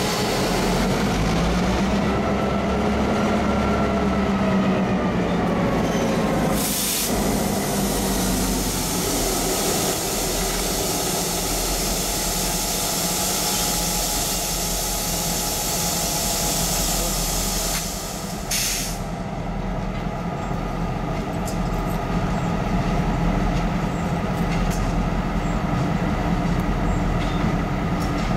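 EMD GP38-2 diesel-electric locomotives running close by, the engine drone rising and then falling in pitch over the first several seconds. Two short hisses, about seven seconds in and again about two-thirds of the way through.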